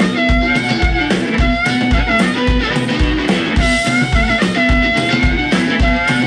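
Amplified blues harmonica played through a handheld mic, holding long bent and wavering notes, over a blues-rock band with electric guitar and drums. The kick drum keeps a steady beat about twice a second.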